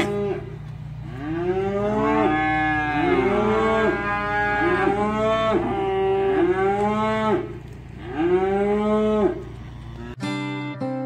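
A pen of weaning calves bawling, many long overlapping calls one after another, the sound of calves newly separated from their mothers. About ten seconds in it cuts to strummed acoustic guitar music.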